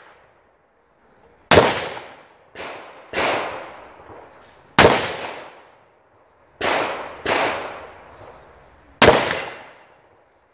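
Gunshots from a firearm on a competition shooting range: seven shots in about ten seconds, each a sharp crack that echoes away over about a second. Three of them, spaced about three seconds apart, are louder and sharper than the rest.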